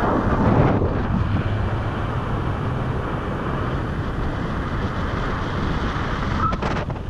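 Steady wind noise from the airflow of paraglider flight, rushing and buffeting against the camera's microphone.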